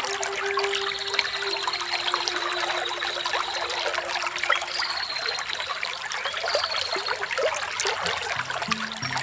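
Small waterfall splashing and trickling steadily.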